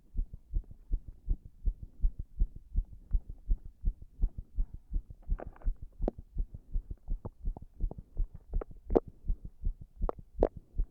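A human heartbeat heard close up: a steady run of low, evenly spaced thumps, with a few sharper clicks over the beats near the end.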